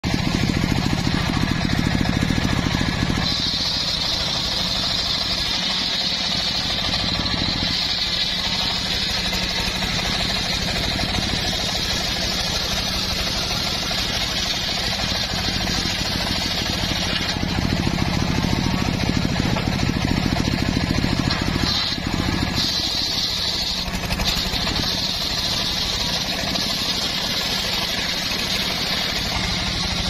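Large homemade circular sawmill blade ripping through a log, its drive motor running steadily underneath. A high, hissing cutting noise sets in about three seconds in, eases off past the middle and comes back briefly near the end.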